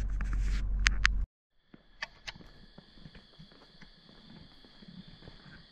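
Low car rumble heard from inside the cabin, with two sharp clicks about a second in, then an abrupt cut to a faint steady chorus of night insects trilling at a high pitch, with a couple of clicks.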